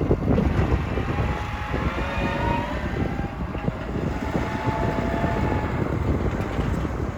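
Farm tractor running with a bale processor, a steady mechanical rumble with a faint wavering whine over it through the middle.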